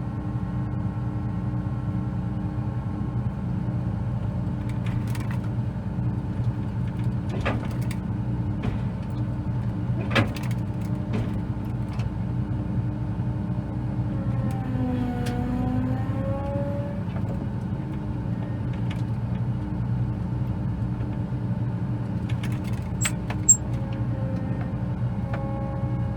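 Combine harvester engine running steadily. About fifteen seconds in its pitch sags briefly and recovers, as if under a passing load. A few sharp clicks or knocks sound over it.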